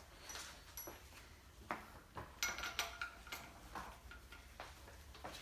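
Several faint, light metallic clinks and taps, scattered and irregular, some ringing briefly: hand tools and small metal engine parts being handled.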